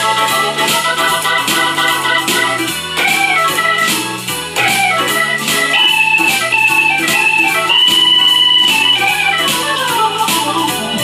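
Korg Pa600 arranger keyboard playing a blues, with a Hammond-style organ voice soloing over the keyboard's own backing beat. The organ line runs up and down and holds a long high note about eight seconds in.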